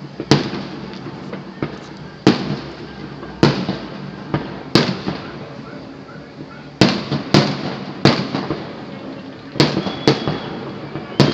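Fireworks display: aerial shells bursting, about ten sharp bangs at irregular intervals, each fading off in an echo.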